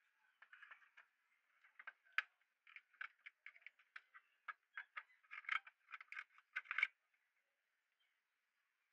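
Irregular plastic clicks and taps from an old PC speaker's plastic housing being handled and its perforated metal grille pried off. The taps come thicker and louder about five to seven seconds in, then stop.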